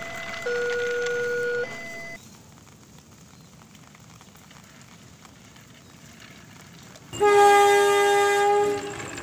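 A locomotive horn sounds once, loud, for about a second and a half, about seven seconds in. Before it, an alternating two-note electronic warning tone stops about two seconds in, leaving only quiet background.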